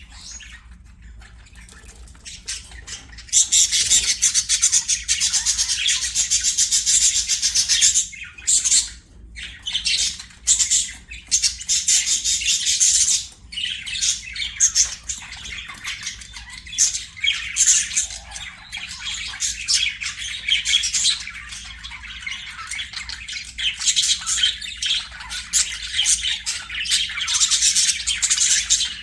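Budgerigars chattering and warbling: a dense, high-pitched twittering that starts loud about three seconds in and carries on with short breaks.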